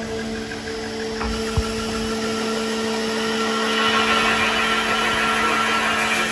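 Peddinghaus Avenger MDL1000B beam drilling line running: a steady machine hum with a harsher high hiss that builds up from about halfway through. There is one sharp click about a second and a half in.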